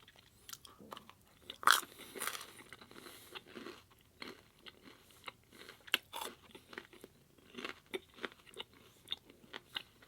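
Close-miked chewing of pasta and bread: irregular wet mouth clicks and smacks, with a sharper bite about 1.7 seconds in.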